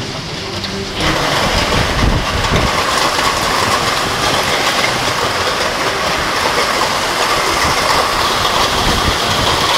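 Heavy hailstorm with golf-ball-sized hailstones, about 4 to 5 cm, pounding down in strong wind: a loud, dense, continuous clatter of countless impacts. It grows suddenly louder about a second in.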